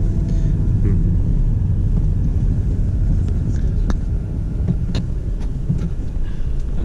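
Steady low rumble of a car driving slowly through town traffic, heard from inside the cabin, with a few faint clicks.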